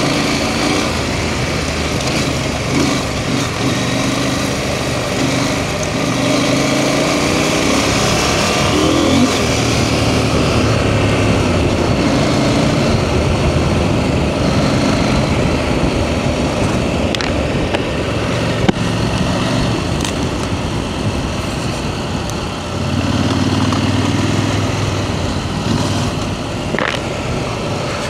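KTM 890 Adventure R's parallel-twin engine running under way, its note rising and falling with the throttle over a steady rush of wind and road noise. The engine dips briefly and picks up again about three-quarters of the way through.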